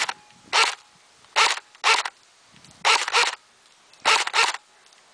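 Cybergun AK47 airsoft electric rifle firing single shots in semi-auto, about eight sharp cracks in quick pairs and threes.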